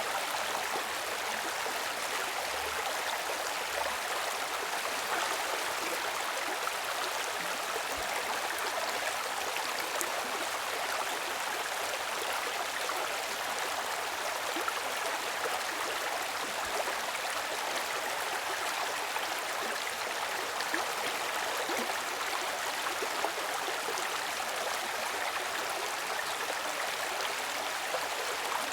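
Flowing water of a stream or river, a steady, even rush and babble.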